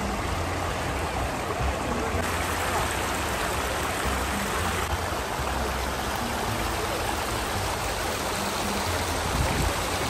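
Water running steadily over rocks down a shallow man-made cascade.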